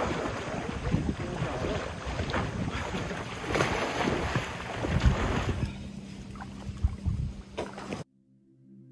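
Water splashing as people wade and swim through shallow lake water, mixed with wind on the microphone; the splashing thins out after about five seconds. Near the end it cuts off abruptly and soft ambient music begins.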